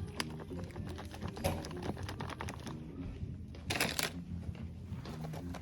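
Light, quick clicking and tapping of small objects being handled, with a short rustle about four seconds in.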